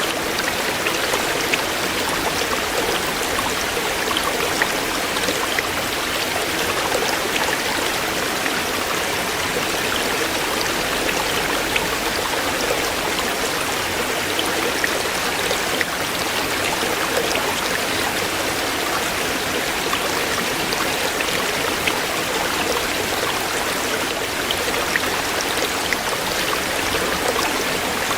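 A shallow stream running over stones: a steady rush of flowing water with small splashes and droplet ticks throughout.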